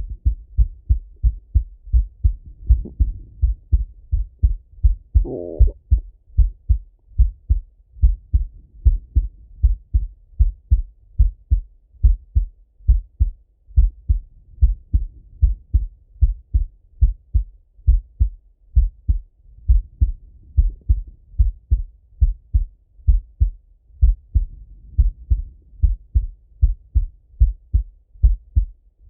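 A man's heartbeat heard through a Littmann stethoscope chest piece: steady, evenly spaced low lub-dub thumps. A brief rustle of the chest piece comes about five seconds in.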